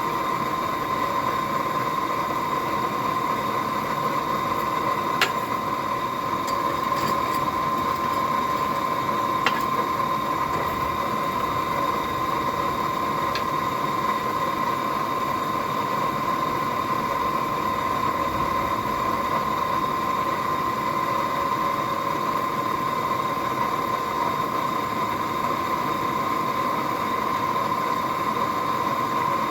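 Blacksmith's forge running with a steady, even rushing noise and a constant hum-like tone. A few faint light clicks of metal sound in the first half.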